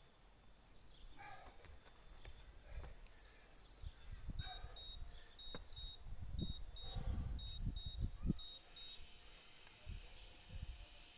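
A high electronic beep repeating in pairs, about ten short pips, starting about four seconds in and stopping near nine seconds. Low rumbling thumps run under it, and there are faint scattered chirps.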